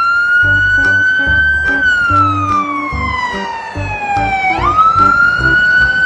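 Fire engine siren wailing. One slow fall in pitch over about three seconds, then a quick rise back up about four and a half seconds in, holding high to the end.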